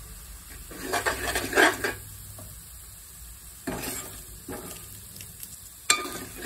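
Metal ladle stirring and scraping fried onions and freshly added ground coriander around a large metal pot, in several bursts, with a light sizzle of the frying masala underneath.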